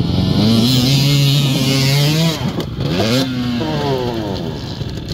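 Off-road vehicle engine revving: the pitch climbs and holds steady for about two seconds, drops briefly, then revs up again and falls away.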